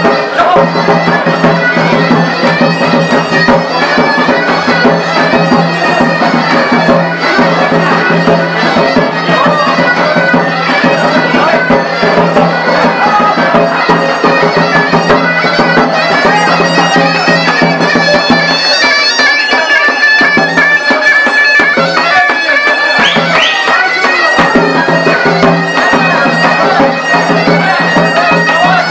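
Live Black Sea horon dance music led by a zurna, loud and reedy, over a steady low drone that drops out now and then in the second half.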